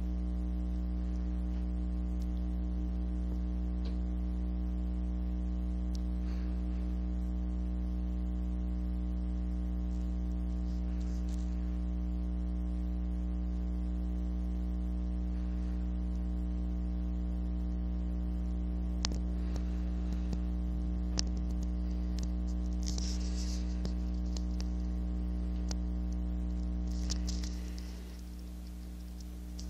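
Steady electrical hum made of many evenly spaced tones, with a couple of faint clicks and some rustling of handling. The hum drops in level near the end.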